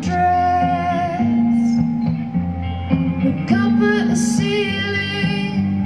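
A woman singing live with band accompaniment: two long held sung phrases, one at the start and another about three and a half seconds in, over steady low sustained instrumental notes.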